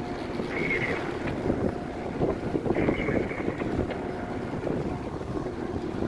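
Wind buffeting the microphone on an open ship's deck over a steady low machinery rumble. Two short high tones come through, about half a second in and about three seconds in.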